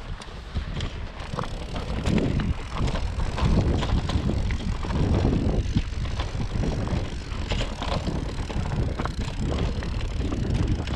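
Electric mountain bike rolling down a rough, stony dirt singletrack. Tyre noise and frequent short knocks and rattles come from the bike over the ground, with a heavy low rumble of wind on the camera microphone.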